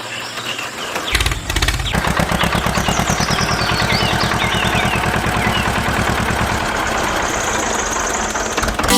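Small engine starting about a second in, then chugging steadily in a fast, even beat, with short high chirps over it in the middle.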